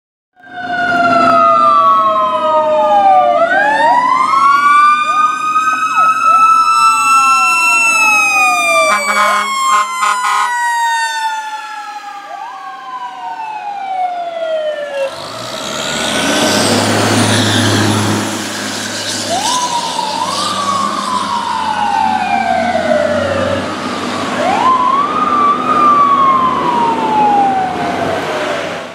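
Fire apparatus sirens of a responding fire engine and ladder truck, two wails rising and falling and overlapping. About nine seconds in come short blasts of the air horn. From about halfway the low rumble of the rigs' diesel engines and a rough rush of noise join in as the apparatus passes, while a siren keeps sweeping up and down.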